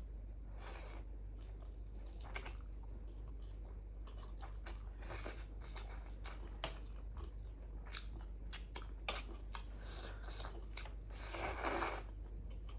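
Close-up eating sounds of a person biting and chewing momo dumplings: wet smacks and soft clicks scattered throughout, with a longer, louder chewing or slurping noise near the end.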